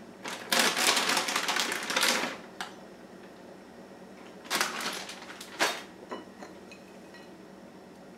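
Plastic bag of shredded cheese crinkling and rustling as handfuls are pulled out. There is one long burst of about two seconds near the start and a shorter burst of about a second midway, followed by a few faint light clicks.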